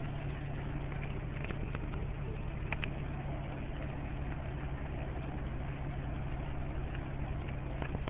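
Truck's engine and road noise droning steadily inside the cab, with a few light ticks.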